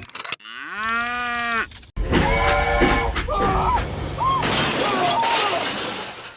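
A cow mooing once, a pitched call of just over a second that rises, holds and falls. It is followed by a loud noisy clatter with short high squeaks over it.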